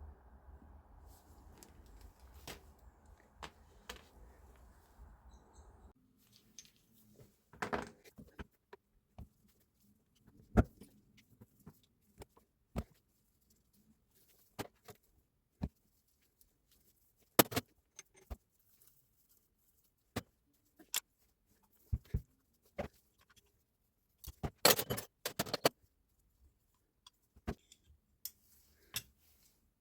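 Irregular metallic clicks, clinks and knocks of tool parts being handled, with several short rattling clusters, the loudest near the end. A low steady hum runs under the first few seconds and cuts off suddenly.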